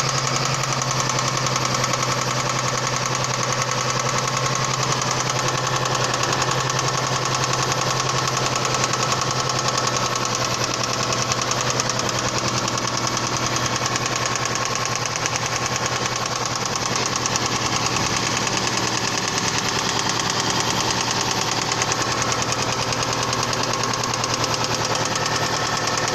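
Toyota Previa's 2AZ 2.4-litre four-cylinder engine running steadily with a rapid, even metallic knock. The knock comes from connecting-rod bearings that have spun on the crankshaft.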